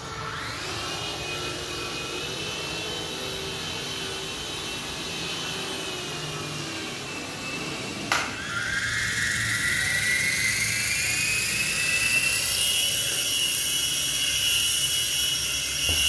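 Toy infrared remote-control helicopter's small electric rotor motors whining, rising in pitch as they spin up and then holding steady. About halfway through there is a sharp click, and a louder whine rises in pitch again and holds.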